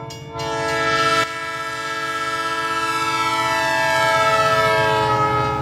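Passenger train passing a grade crossing, its multi-note horn sounding one long chord over the rumble of the cars. The chord slides gradually lower in pitch during the second half as the train goes by.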